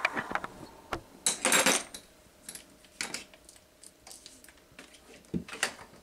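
Metal clicks and clinks of tools and screws being handled while a curtain-rod bracket is screwed to the wall, with one short, louder rattling scrape about a second and a half in.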